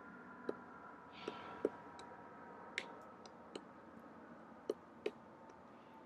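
Pileated woodpecker striking the bark of a dead tree with its bill: about seven sharp single knocks at an irregular pace, not a drumming roll.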